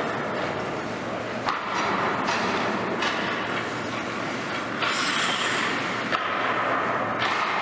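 Indoor ice rink noise: skate blades scraping and gliding on the ice over a steady background hum, with a louder, hissing scrape about five seconds in.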